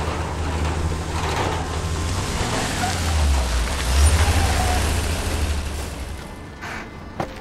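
Heavy six-wheeled army trucks driving on a dirt road: a deep engine rumble with road noise that swells as they pass, loudest about four seconds in, then fades. One sharp click near the end.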